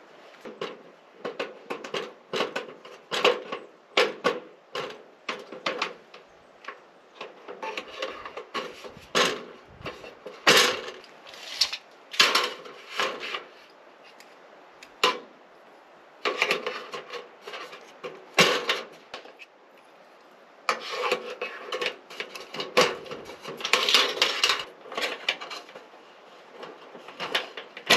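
Irregular knocks, clatters and rubbing from hands-on gutter installation work, with parts and tools being handled, coming in several bursts with short pauses.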